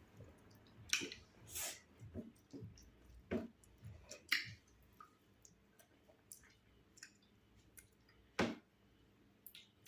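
Faint eating sounds from fufu and ogbono soup: scattered wet lip smacks and chewing clicks, bunched in the first half, with one sharper click near the end.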